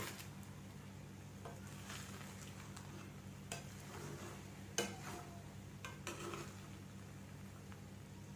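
A spoon scraping and knocking against a cooking pot with the pulao in it, in about half a dozen separate strokes, the sharpest just before the middle, over a steady low hum.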